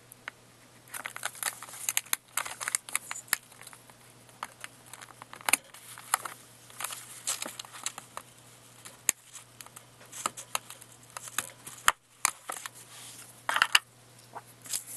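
Plastic retail packaging being worked open with a knife: an irregular run of sharp clicks, crinkles and short scrapes, busiest just before the end.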